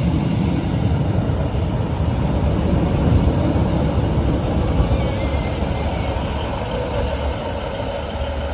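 Class 156 diesel multiple unit close by, its underfloor diesel engines running with a steady low rumble that eases slightly toward the end.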